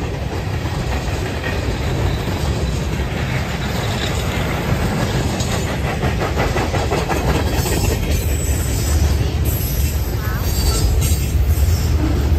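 Freight train cars rolling past at close range: steady rumble of steel wheels on rail, getting slightly louder toward the end.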